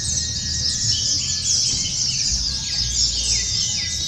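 Many white-eyes (pleci) singing at once: a dense chorus of quick, high, overlapping chirps and twitters, with a few lower falling notes in the middle, over a low steady rumble.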